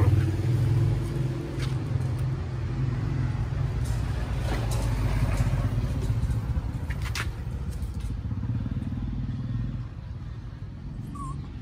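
Steady low engine rumble of a running motor vehicle, with a few thin newborn-puppy whimpers near the end.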